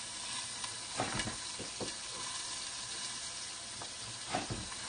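Salmon steaks sizzling steadily in a frying pan, with a few dull knocks of a chef's knife on a wooden cutting board as salmon is sliced. The loudest knocks come about a second in and near the end.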